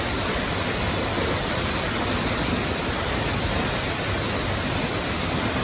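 Huay Luang waterfall crashing down onto the rocks at its base, heard up close as a loud, steady rush of water.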